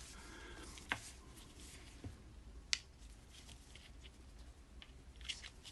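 A few faint, scattered clicks and taps from handling a round smartwatch, the sharpest about two and a half seconds in.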